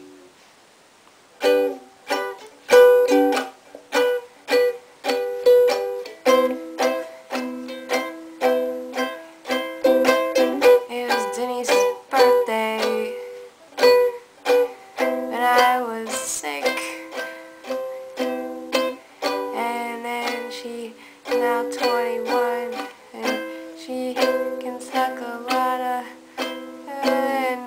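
Ukulele strummed in chords, about two strums a second, starting after a short pause about a second in.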